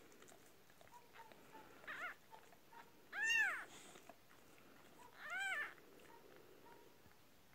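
Newborn kitten mewing three times. The first call is short and faint, the second is the loudest, and each call rises and then falls in pitch.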